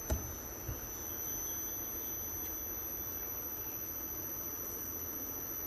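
Midea inverter air conditioner compressor running under the repaired outdoor-unit board's drive: a steady low hum with a constant thin high-pitched whine. It is running normally, the board no longer tripping its P1 voltage-protection fault.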